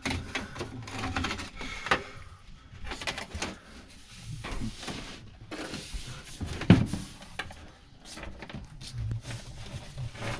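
Irregular rustling, clicks and knocks of a flexible dryer vent duct and its clamp being handled and worked onto the vent, with one sharp knock about two-thirds of the way through.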